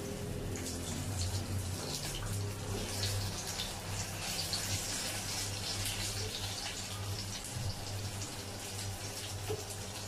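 Lamb chops sizzling and crackling in hot oil in a nonstick frying pan, with many small spatter pops, over a steady low hum.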